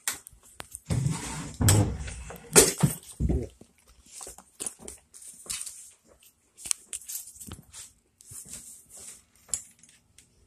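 Handling noise from the recording phone: irregular rustling, clicks and a few knocks, loudest in the first few seconds, then lighter scuffs and clicks.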